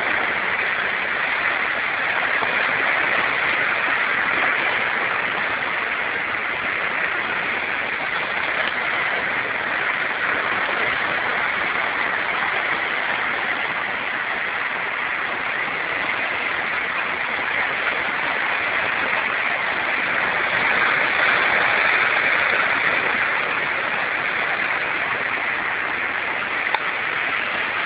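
Sea surf breaking on a rocky shore: a steady rushing hiss that swells gently now and then, loudest a little after twenty seconds in.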